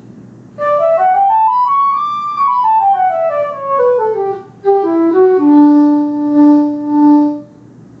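The Songbird iPhone app's synthesized silver flute, played by blowing into the phone, running a scale in the key of D: up about an octave, then down about two octaves, ending on a long low note that swells three times before stopping.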